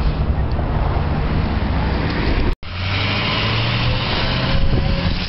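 A motor engine running steadily, with a low drone. It cuts out for an instant about two and a half seconds in, then resumes at a slightly different pitch.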